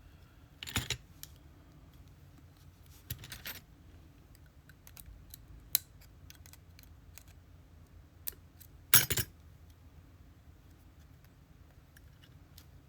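Small metallic clicks and short rattles from a lock and its parts being handled with tools. There are scattered single ticks and brief clusters of clicks, and the loudest clatter comes about nine seconds in.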